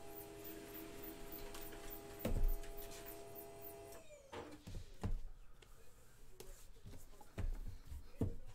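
A cardboard trading-card hobby box being handled and set down on a table: a few soft knocks and bumps, the loudest about two seconds in. Under them runs a faint steady hum that stops about four seconds in.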